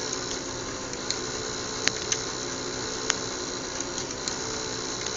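Steady mechanical whirring hum from small running machinery, with a few short, sharp clicks scattered through it.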